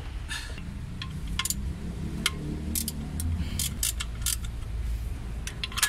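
Scattered light clicks and clinks as hands pull an oil-soaked timing belt off its toothed sprockets and work around the tensioner, over a low steady background rumble.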